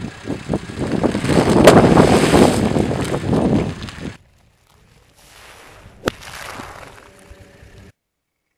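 A car tyre slowly crushing a plastic bag of puffed corn snacks: the bag crackles and the puffs crunch in a dense run of snaps, loudest about two seconds in, and it cuts off suddenly about four seconds in. A fainter stretch of crackly noise follows later, with one sharp click.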